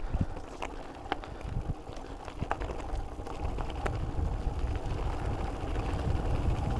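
Argon 18 Dark Matter gravel bike rolling down a rocky gravel descent on low-pressure 45C tyres: a rumble over the stones with scattered sharp clicks and rattles from the bike over bumps. Wind noise on the microphone builds toward the end as speed picks up.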